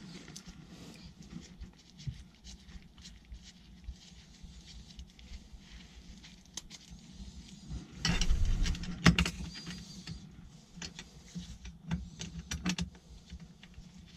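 Small metal electrical fittings, a cable connector and its lock nut, clicking and rattling as they are handled and threaded together. A louder spell of handling comes about 8 seconds in, with one sharp click a second later.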